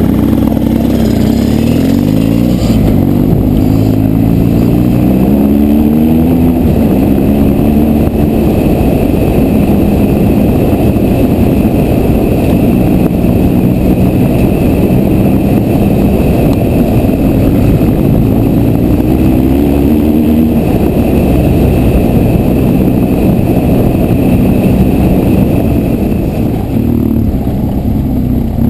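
BMW R1200GS boxer-twin motorcycle engine pulling through the gears. Its revs climb in steps and drop back at each shift during the first several seconds and again from about halfway in, over steady wind and road rush on an on-board microphone.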